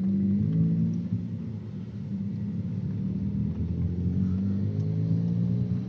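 Car engine and road noise heard from inside the cabin of a moving car. The engine's steady low hum shifts in pitch and rises in the second half as the car speeds up.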